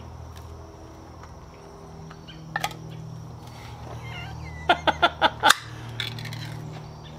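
A few sharp clicks and taps of handling: two about two and a half seconds in, then a quick run of about five near the middle, over a steady low hum and a thin high whine.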